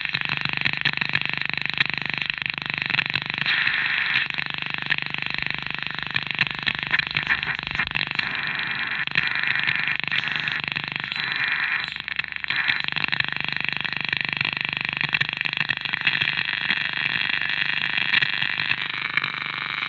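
Grundig Yacht Boy 210 portable radio on shortwave, its loudspeaker playing a garbled single-sideband amateur-band signal mixed with static. The sideband transmission comes through as distorted, unintelligible warbling rather than clear speech.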